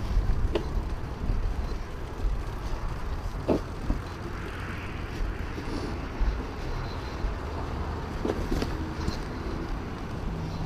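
KTM 500 EXC Six Days' single-cylinder four-stroke engine running steadily at low revs as the bike creeps along, with a few short sharp clicks.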